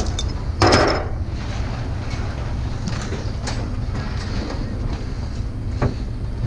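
Scrap metal pieces clattering and knocking as they are handled and sorted, with the loudest clatter about half a second in and a few lighter knocks later, over a steady low rumble.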